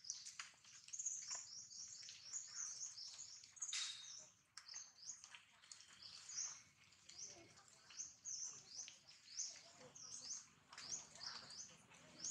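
Small birds chirping in a quick, high-pitched run of short repeated notes, with a faint rustle about four seconds in.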